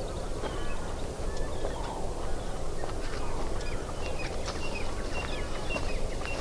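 Birds calling outdoors: many short, quick chirps repeating throughout, over a steady low rumble of outdoor background noise.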